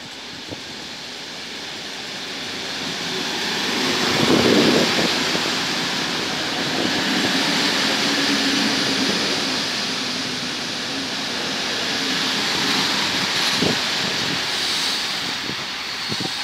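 NS Mat '64 electric multiple unit pulling into a station platform and rolling slowly past close by, the steady rumble of wheels on rail swelling as the lead car comes alongside. A few sharp wheel knocks come near the end.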